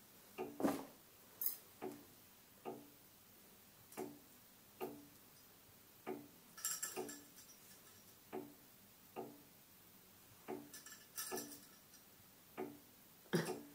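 A slow series of hollow knocks, roughly one a second, with two short rattling flurries of quicker clicks in between. It is a spooky knocking effect that is taken for shutters banging in the wind.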